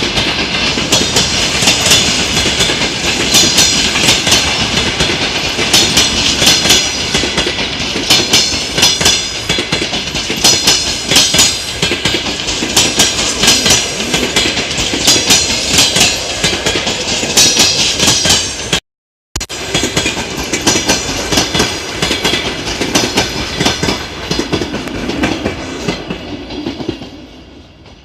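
Railway carriage wheels clattering over the rail joints: a fast, loud clickety-clack of sharp metallic clicks over the steady rumble of a moving train. The sound drops out for about half a second two-thirds of the way through and fades away near the end.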